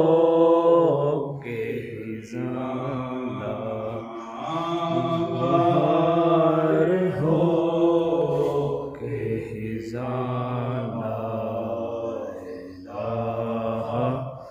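A man chanting a devotional Islamic chant in long, held sung phrases, with short breaks for breath between them.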